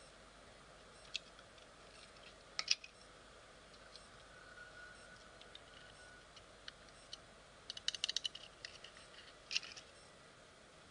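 Scattered light clicks and taps over a faint steady hiss, with a quick cluster of them about two-thirds of the way through.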